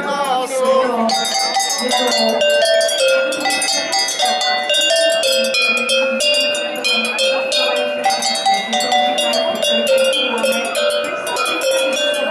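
A row of tuned cowbells of graded sizes, hung from a wooden pole, struck one after another to play a folk melody: quick runs of ringing notes at different pitches, each note sustaining as the next is struck.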